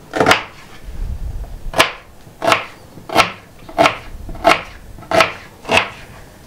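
Kitchen knife chopping an onion on a cutting board: eight sharp strokes, a single one, then after a pause seven more at an even pace of roughly three every two seconds.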